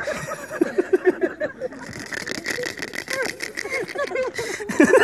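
Several people laughing hard in repeated bursts of short voiced "ha" sounds, with a rapid rattling noise in the middle.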